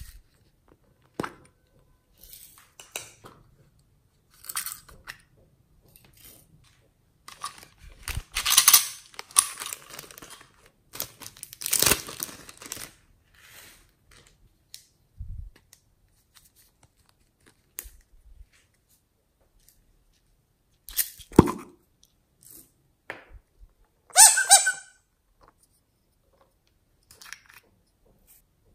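Irregular rustling, crinkling and clicking of plastic packets and small plastic containers of glitter and sprinkles being opened and emptied over slime. The loudest rustles come near the middle and twice more later on.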